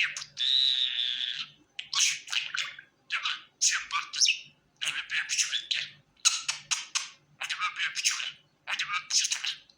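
Budgerigar warbling: fast, scratchy chatter in short bursts with brief pauses, and one longer held whistle-like note lasting about a second just after the start.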